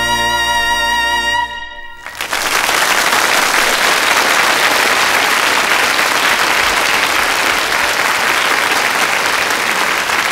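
A trumpet and band hold a final chord that cuts off about two seconds in, and a studio audience breaks into steady applause.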